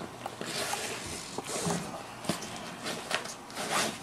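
Nylon webbing belt being fed by hand through the fabric loops of a small inflatable-bag pack: fabric and strap rustling and sliding, with a few light clicks.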